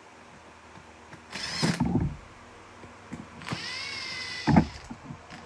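Cordless drill-driver running in two short bursts of about a second each as it drives in the screws of a chainsaw cover, its motor whining; the second burst ends in a sharp knock.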